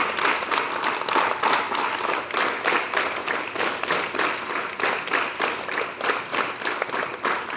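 A large group of students clapping together in a quick, steady rhythm of about four claps a second, as part of an assembly drill.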